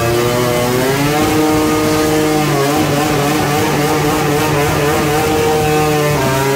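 Motorcycle engine held at steady revs, stepping up in pitch about a second in and again a little later, then dropping near the end.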